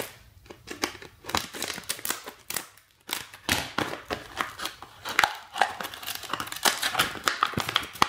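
Stiff clear plastic blister packaging being cut with scissors and pulled apart by hand: irregular crinkling and crackling, with a short lull about three seconds in.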